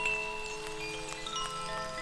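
Koshi Aqua wind chime ringing: several clear metal notes struck one after another, each left to ring and overlapping the last, over a steady hiss of rain.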